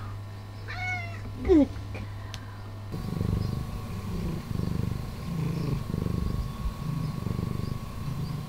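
A domestic cat meowing twice about a second in, the second call the loudest and sliding down in pitch. Then, from about three seconds in, a cat purring in an even rhythm of in-and-out cycles a little under a second each.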